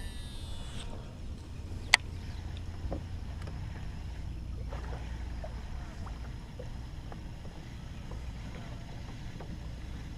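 Steady low hum from the fishing boat's equipment, with one sharp click about two seconds in and a few faint ticks.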